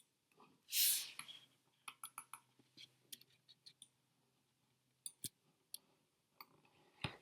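Computer mouse clicking, a scatter of sharp clicks at uneven intervals, with a short breathy rush about a second in as the loudest sound.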